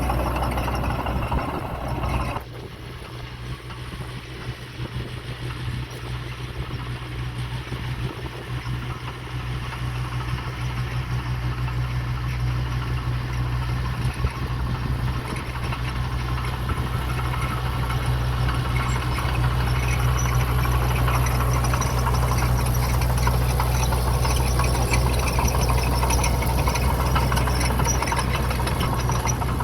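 Heavy-equipment diesel engine running steadily with a low hum. The level drops suddenly about two seconds in, then slowly builds back up over the following twenty seconds.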